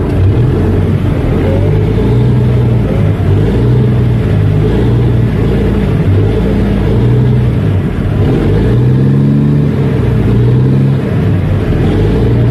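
Boat engine running loud and steady close by, its pitch shifting up and down a few times as the throttle changes, most clearly a rise and fall about two-thirds of the way through.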